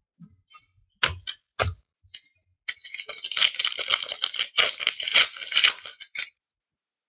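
A trading-card pack wrapper crinkling and tearing as it is opened by hand, in a dense crackling run of about three and a half seconds. Two short knocks come before it, about a second in.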